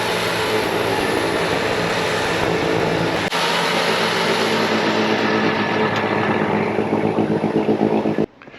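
Bobcat T66 compact track loader's diesel engine running steadily at high revs under load, with the rushing whir of its snowblower attachment throwing snow. The sound shifts abruptly about a third of the way in and cuts off suddenly near the end.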